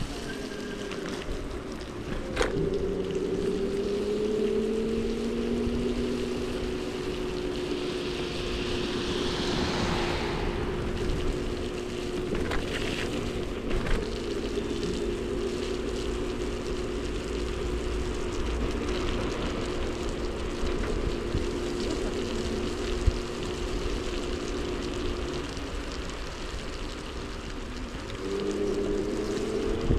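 Electric scooter motor whining as it rides, its pitch rising as it speeds up a couple of seconds in, holding steady, then dropping and climbing again near the end, over steady wheel and wind noise on a wet path. A few short clicks from the scooter or its mount.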